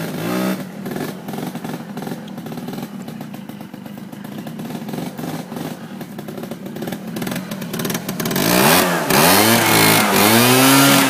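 Honda Spree 49cc two-stroke scooter engine running steadily, then revved a few times near the end, the pitch rising and falling with each blip.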